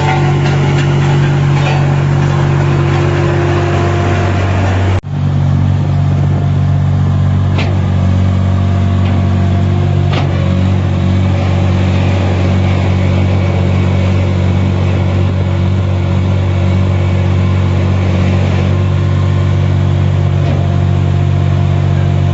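Truck engine running steadily with a deep, constant hum, close and loud. The sound cuts off abruptly about five seconds in and resumes at once, slightly changed.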